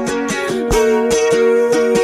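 Live acoustic song, instrumental between sung lines: acoustic guitar strummed in a steady rhythm of about four strokes a second, with a long held note entering just under a second in.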